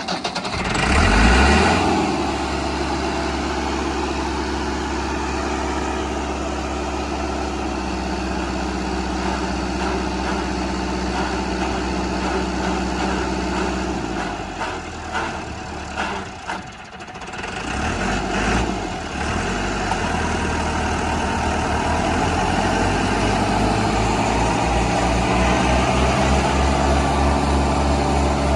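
Massey Ferguson 385 tractor's four-cylinder diesel engine running just after starting, a steady low engine note that rises in loudness about a second in. Past the middle it sags and wavers for a few seconds, then steadies again.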